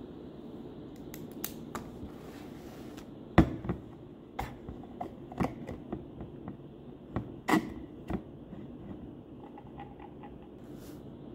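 A water bottle being handled and its cap opened: a run of sharp knocks and clicks, loudest about three seconds in and again past halfway, over a steady low room hum.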